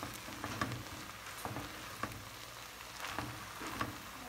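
Ground beef with onion and garlic sizzling in a nonstick pot, with a wooden spatula stirring and scraping through it in repeated strokes about every half second.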